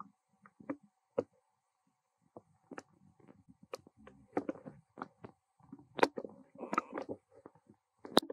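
Dry leaf litter and gravel rustling and crackling in irregular small clicks as a baby macaque walks and picks about on the ground, busiest from about four to seven seconds in.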